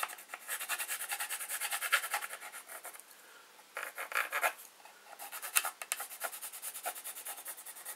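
Red-brown coloured pencil scratched rapidly back and forth over embossed brick-textured sheet, about ten quick strokes a second. It comes in spells with short pauses, the longest about three seconds in. This is the light, uneven first coat of colour on the model brickwork.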